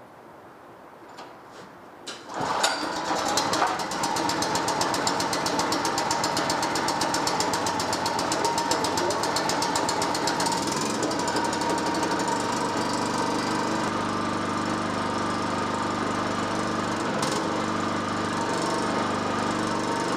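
Full Boar 2800W generator's small single-cylinder four-stroke engine starting suddenly about two seconds in and then running steadily, its note settling a little past halfway. It is being run to burn the fuel out of the carburettor bowl so the fuel doesn't varnish.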